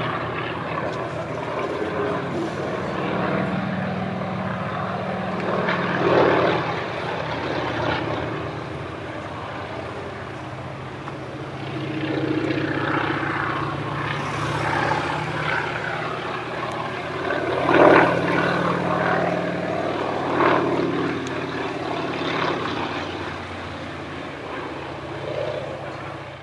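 A PZL crop-duster's radial engine and propeller drone as the plane flies overhead, the pitch and loudness rising and falling as it manoeuvres. There are a few brief louder surges, the strongest about 18 seconds in.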